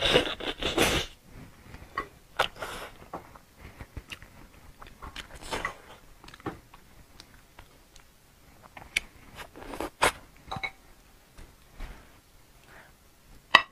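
Biting and chewing braised pig's trotters: irregular mouth sounds, loudest in the first second, with a sharp click near the end.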